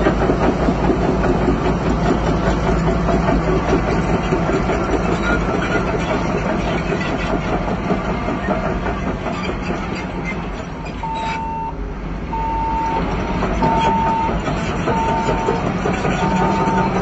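Heavy construction machinery running with a dense mechanical clatter. From about two-thirds of the way in, a reversing alarm beeps steadily, about once every second and a quarter.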